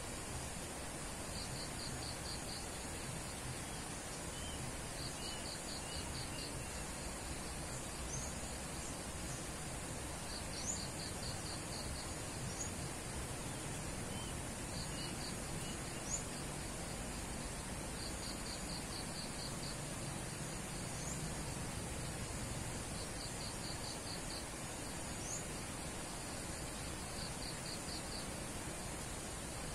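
An insect chirping in short trains of rapid pulses, a train every four seconds or so, over a steady high hiss of outdoor background noise. Faint short bird chirps come and go.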